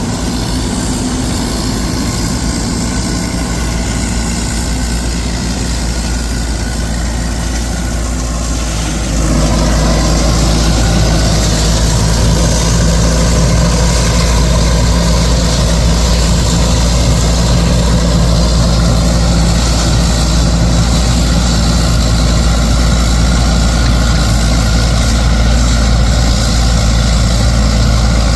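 Diesel engine of heavy farm machinery running steadily. About nine seconds in, it steps up to a louder, fuller sound and holds there.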